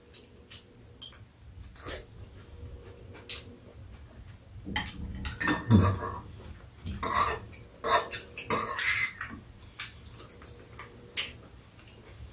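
Metal spoons and chopsticks clinking and scraping against bowls and a metal serving tray during a meal. The light clicks come scattered, thickest in the middle.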